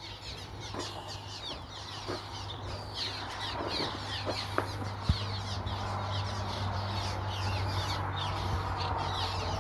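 A nesting colony of many birds calling at once, a dense chorus of short downward-slurred calls that grows louder and busier.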